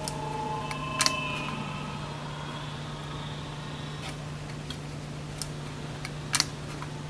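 Steady low hum, with light clicks and taps from a 35mm film negative being handled on a hinged metal enlarger negative carrier, the sharpest a double click about a second in and another about six seconds in.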